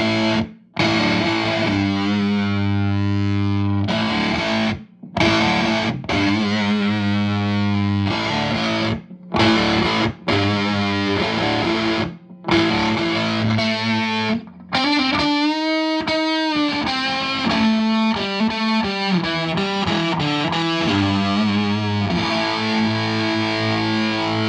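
Electric guitar played through a JHS Lizard Queen octave fuzz pedal: distorted chords and riffs in phrases with short stops between them, and a held note wavering in pitch about two-thirds of the way through.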